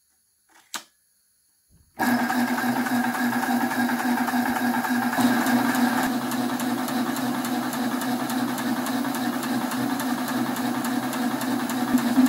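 A switch clicks once just under a second in, then about a second later a homemade 300-bar high-pressure PCP compressor starts and runs steadily: a strong even hum with a fast, regular ticking over it.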